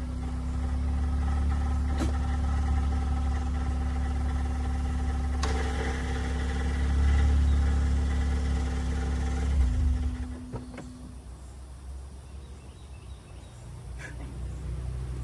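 Honda Accord engine idling with a steady whine over the low hum, a noise the owner puts down to the transmission because it goes away when the car is put in gear; the engine shuts off about ten seconds in.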